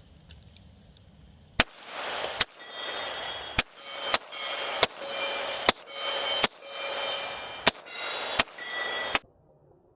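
CNC Akira 2011 pistol firing a string of about ten shots, unevenly spaced roughly a second apart, with a hiss and faint ringing tones between the shots.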